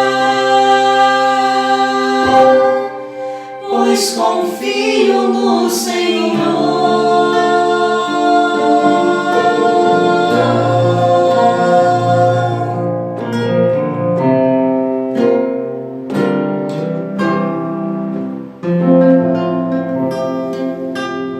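Worship song sung over held accompaniment chords, with plucked guitar notes becoming prominent in the second half.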